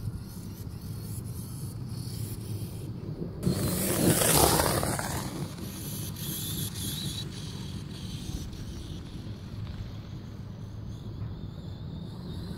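Redcat Avalanche brushless RC monster truck running, with a louder rushing noise for about a second and a half, about four seconds in.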